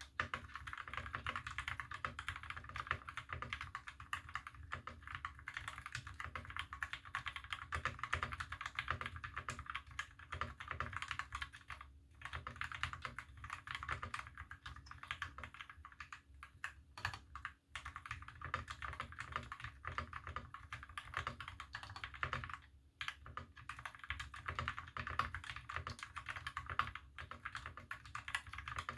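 Fast continuous typing on a mechanical keyboard with lubed Milky Gateron Yellow linear switches, a brass plate and GMK keycaps: a dense stream of key presses, with brief pauses a few times.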